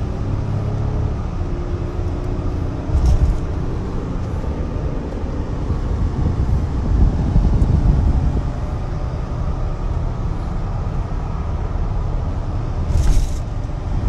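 Vehicle driving on a road, heard from inside the cab: a steady low road and engine rumble, with two brief louder bursts about three seconds in and near the end.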